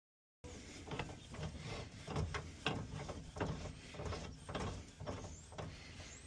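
Irregular small clicks and knocks of hand tools and parts being handled, roughly one or two a second.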